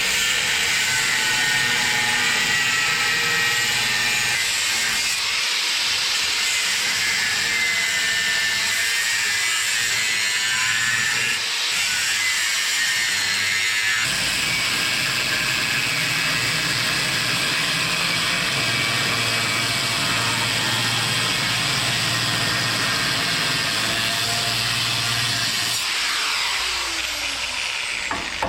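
Steady, high-pitched machine whine over a low hum, changing in character a few times. Near the end a falling sweep sounds, like a machine spinning down.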